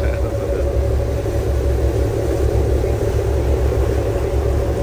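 A boat's motor running steadily: a constant hum over a deep rumble.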